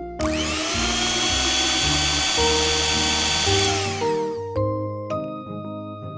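A small electric motor whirring: it spins up just after the start, runs steadily, and winds down about four seconds in, over background piano music.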